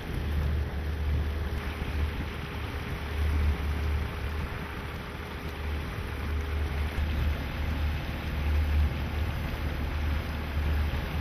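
Wind rumbling on the microphone aboard a moving boat, a gusting low rumble over a steady hiss of water.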